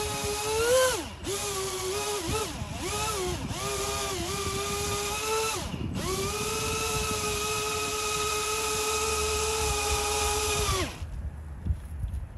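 Electric motor of a radio-controlled boat whining, its pitch dipping and rising with several short throttle changes, then held steady for about five seconds before it cuts off near the end.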